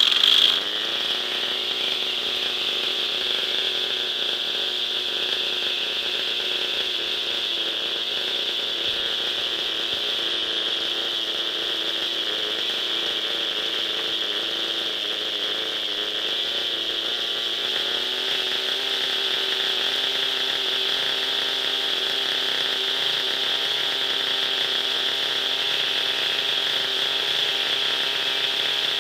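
O.S. 50 Hyper two-stroke glow engine of a Hirobo SDX 50 nitro RC helicopter running steadily on the ground with the rotor turning, with a high whine over the engine note; the revs rise slightly about two-thirds of the way through. This is an early run of the new engine during its run-in.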